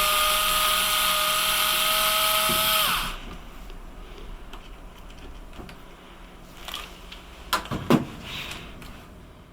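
Cordless electric screwdriver running steadily with a high motor whine as it backs a screw out of a laptop case, winding down and stopping about three seconds in. A few light clicks and knocks follow near the end.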